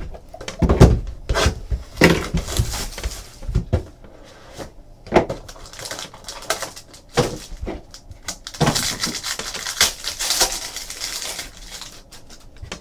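A trading card box and its packs being opened by hand: a run of sharp clacks and knocks, then a few seconds of crinkling, tearing wrapper noise.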